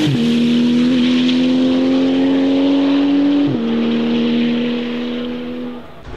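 Porsche 911 GT2 RS Clubsport 25's twin-turbo 3.8-litre flat-six accelerating hard away, the pitch dropping with an upshift right at the start and another about three and a half seconds in. The sound fades as the car pulls into the distance near the end.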